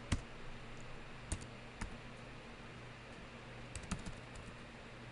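Computer keyboard typing: a handful of scattered key clicks, about five in all, over a faint steady hum.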